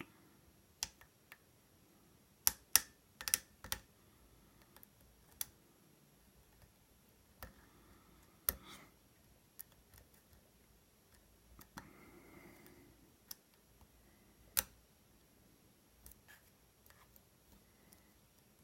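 Irregular metallic clicks of a hook pick and tension wrench working the pin stacks of an American 1100 series padlock, with a quick cluster of clicks about three seconds in and single ones spaced out after it.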